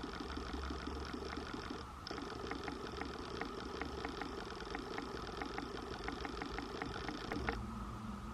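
Hand-crank shoe-repair sewing machine stitching: a steady mechanical clatter of about three stitches a second, with a short break about two seconds in, stopping shortly before the end.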